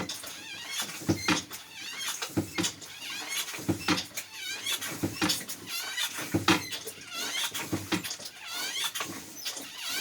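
Manual bilge hand pump being worked in steady strokes, draining the bilge. Each stroke gives a squeak and a thump, about one stroke every second and a quarter.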